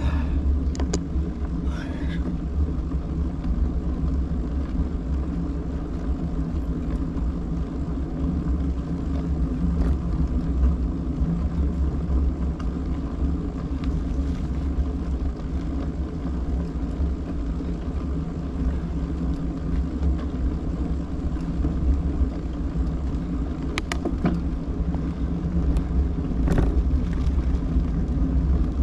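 A vehicle driving: steady low rumble of engine and road noise, with two short clicks near the end.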